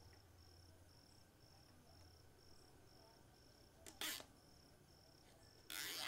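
Quiet, with a cricket chirping faintly in an even rhythm. Plastic cable ties are pulled tight through their locks by hand, giving a short rasp about four seconds in and a longer one near the end.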